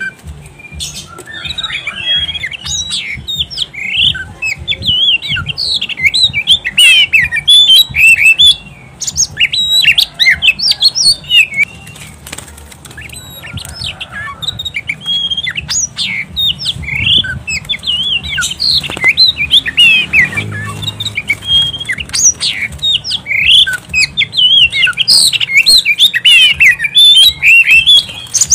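Oriental magpie-robin (kacer) singing on and on in a fast, varied run of short chirps and whistles.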